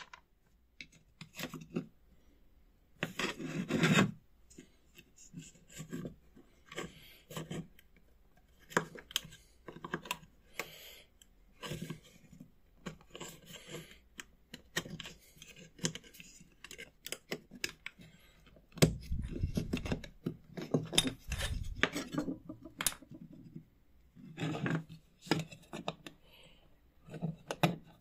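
Small metal scraper working over the metal frame and wood of an old slide-projector slide holder in short, irregular scraping strokes, with clicks of metal on wood between them. A few heavier, deeper knocks of handling on the workbench come a little past the middle.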